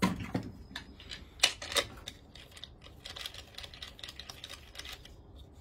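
Clicks and knocks of an ECHO CS-7310SX chainsaw's air filter element being handled and fitted back onto the engine's intake. A few louder knocks come in the first two seconds, then a quick patter of small clicks.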